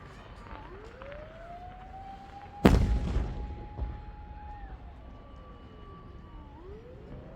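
A firework shell bursts with one loud bang a little under three seconds in, crackling and rumbling away over about a second. Under it a siren wails, its pitch slowly rising, holding and falling in a cycle of several seconds.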